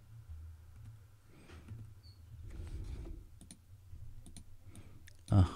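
Computer keyboard keys and mouse clicks: scattered soft clicks over a low steady hum, with one louder knock near the end.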